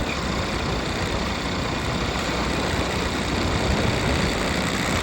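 Motorcycle under way at steady speed: engine running, with a constant rush of wind and road noise.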